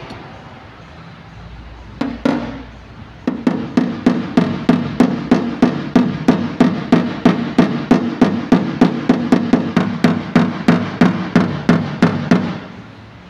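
A dent-repair hammer tapping rapidly and evenly on a car's sheet-metal body panel, about four taps a second, each with a short metallic ring. Two knocks come first, then the steady run starts about three seconds in. This is the tap-down stage of paintless dent repair, levelling the dented panel.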